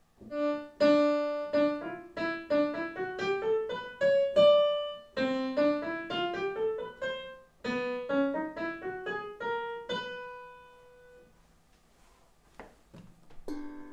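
Piano played in three rising scales of about an octave each, the last run's notes ringing out and fading about a second before the end. The scales check the pitch of the tongue drum's notes, whose first note proves to be a D.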